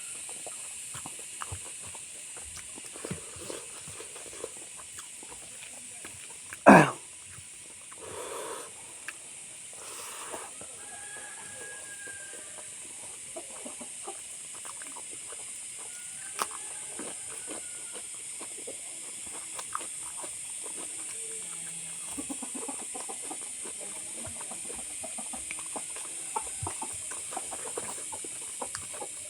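Eating sounds: chewing and mouth smacking with small irregular clicks, over a steady high hiss. Chickens cluck in the background, and one loud sharp sound comes about seven seconds in.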